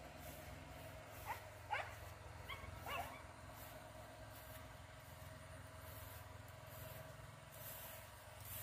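Faint dog yips: four or five short, high calls in the first three seconds, then only a faint low hum.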